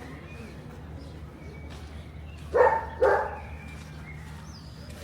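A dog barking twice in quick succession, about two and a half seconds in.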